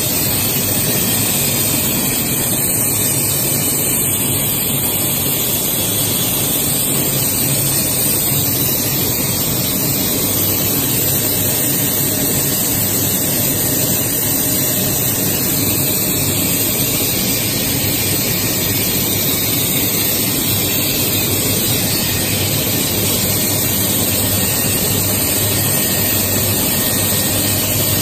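PVC film extrusion line running: a steady, unchanging mechanical rush with a low hum underneath.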